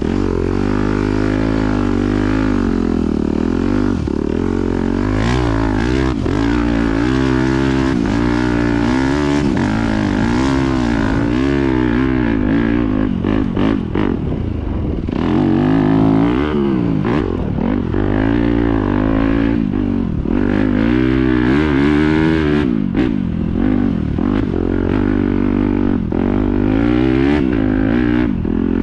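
Yamaha YZ250F four-stroke single-cylinder motocross bike being ridden, its engine revving up and dropping back over and over as the throttle is worked.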